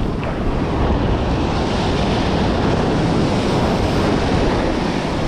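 Ocean surf washing up the beach, foaming whitewater swirling around the legs, with wind buffeting the microphone. It gets a little louder about a second in as a wave runs in.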